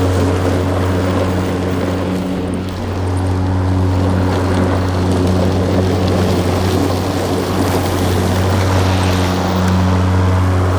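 Self-propelled electric lawnmower running steadily: a constant low motor-and-blade hum over a broad rushing noise.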